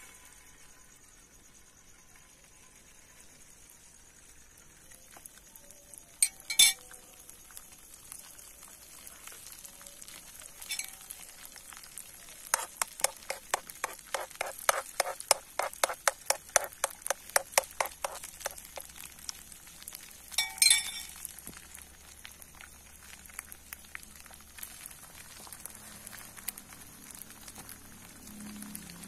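Beaten egg frying in a nonstick pan, a faint steady sizzle. In the middle, a quick run of light clinks against the pan, about four a second for several seconds, with two louder single clinks before and after it.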